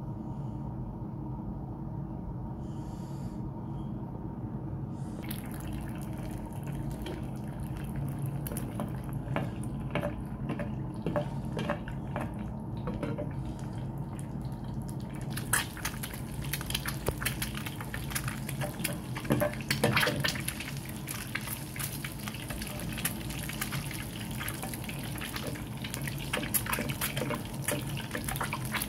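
An egg frying in hot oil in a black iron pan. Sizzling with scattered pops begins about five seconds in and turns into dense, steady crackling from about halfway through. A steady low hum runs underneath.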